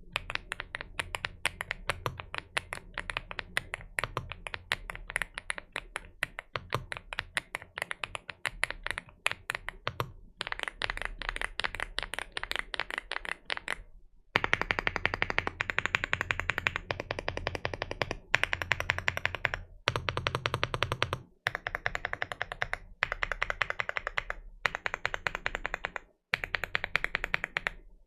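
Fast typing on a Rainy75 mechanical keyboard with AKKO V3 Creamy Purple Pro tactile switches. The keystrokes come in continuous runs of several seconds with short pauses between them. The runs from about halfway through are louder and brighter.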